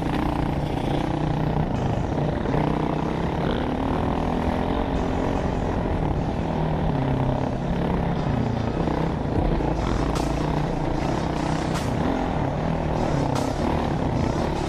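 Dirt bike engine running under way as the bike is ridden along a rough dirt track, heard from a helmet-mounted camera, its pitch rising and falling with the throttle. A few sharp knocks come in from about ten seconds on.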